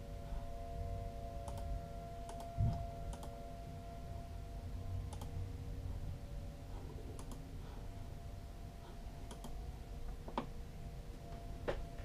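Scattered clicks and taps of a computer keyboard and mouse being used, over a steady low rumble, with one louder low thump about two and a half seconds in.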